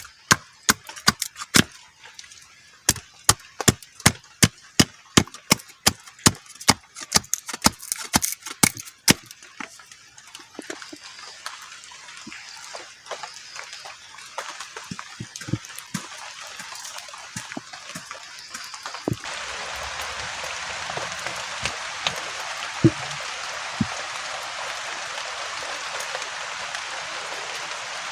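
A rapid run of sharp knocks, about two a second, from a blade chopping firewood, thinning out after about ten seconds. About two-thirds of the way in, the steady hiss of heavy rain comes in suddenly.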